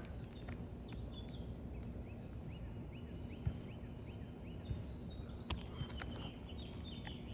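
Steady outdoor background noise. In the middle runs a faint series of quick high chirps, about three a second, and near the end come a few sharp clicks.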